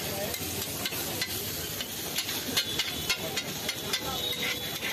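Chicken skewers in masala sizzling on a flat metal griddle, with a metal spatula scraping and clacking against the hot surface in repeated sharp strokes, about two a second, over a steady frying hiss.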